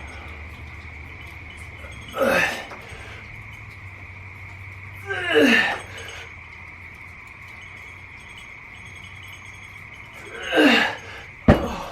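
A weightlifter's forceful breaths or grunts as he works through the reps of a set: three short blasts a few seconds apart, each falling in pitch. A sharp metallic clink comes near the end.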